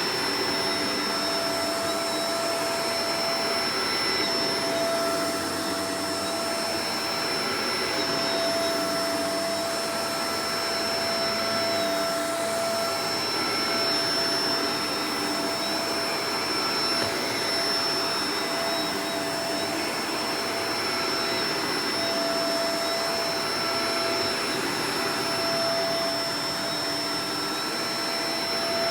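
Shark Professional Powered Lift-Away DLX (NV586) vacuum cleaner running steadily: a constant rush of air with a thin high whine, its loudness rising and falling gently every couple of seconds.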